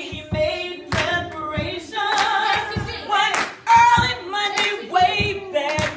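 Recorded song: a sung melody with hand claps keeping a steady beat, about two claps a second.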